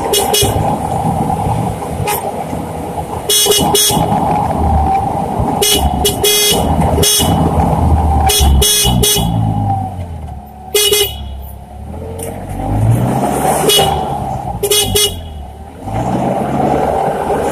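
Propane forklift engine running and revving up and down repeatedly as the truck is driven, with a series of short, sharp hissing or rattling bursts over it.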